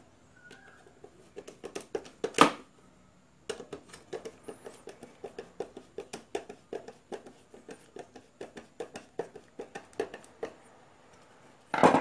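A metal screwdriver tapping and scraping around the motor shaft inside a plastic electric blower housing: a rapid, uneven run of small clicks, several a second, with a sharper knock about two and a half seconds in and another just before the end.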